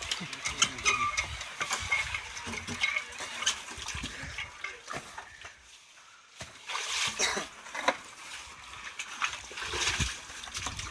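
Irregular knocks and clatter with water splashing during well-cleaning work, quieter for a moment about six seconds in.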